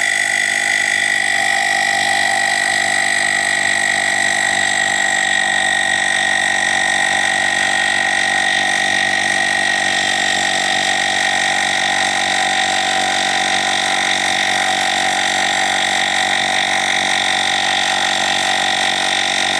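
Woscher i6 portable tyre inflator's compressor running steadily as it pumps air into a motorcycle tyre: an even mechanical buzz with a steady high whine over it.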